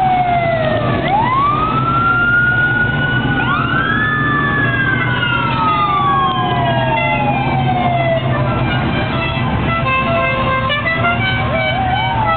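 Several sirens wail in long rising and falling glides over the steady rumble of many car engines. From about eight seconds in, a crowd of car horns sounds short notes at many different pitches, and near the end a siren switches to a fast up-and-down yelp.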